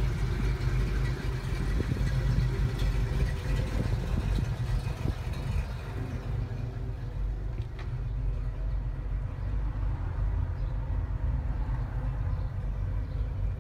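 VW LT 28 camper van's engine idling with a steady low hum. It sounds duller from about halfway, heard from inside the van.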